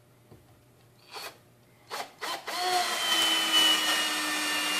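Kimo 20V cordless drill in low gear (speed setting 1) driving a 3-inch deck screw into a 4x4: a few light clicks first, then from about two and a half seconds in the motor runs steadily with a whine as the screw goes into the wood.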